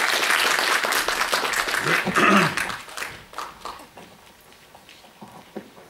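Audience applauding, loud at first and dying away after about three seconds, with a brief voice heard over it about two seconds in.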